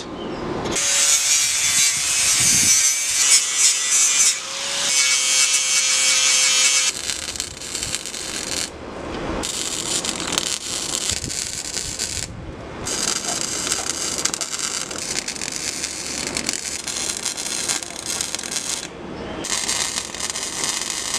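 Wire-feed welder arc crackling and hissing as steel auger blades are welded, in runs broken by three short pauses between beads. The first several seconds are louder and hissier than the rest.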